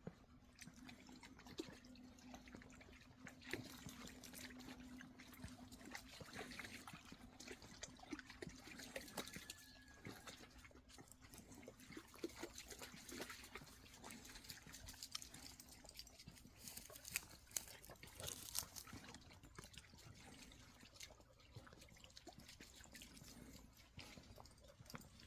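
Faint, scattered clicks and taps throughout, with one brief, high, whistle-like whine from an excited border collie about nine seconds in.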